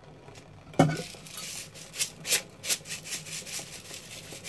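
Table salt shaken out of a cardboard Saxa salt drum into a pot of water: a gritty hiss of grains in short repeated bursts, after a single knock about a second in.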